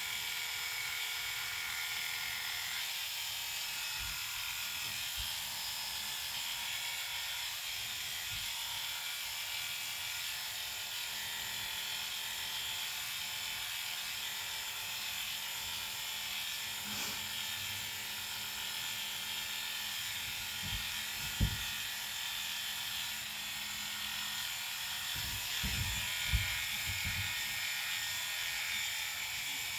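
Electric dog grooming clippers running steadily with a motor buzz as they are worked through an Airedale's wiry coat. A couple of brief low knocks come about two thirds of the way in and again near the end.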